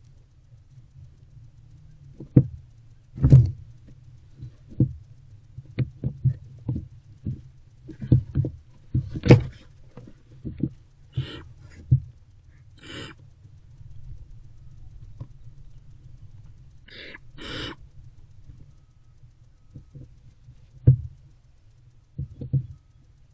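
Barn owlets moving about inside a wooden nest box: irregular knocks, thumps and scrapes, with a few short hissing calls, over a steady low hum.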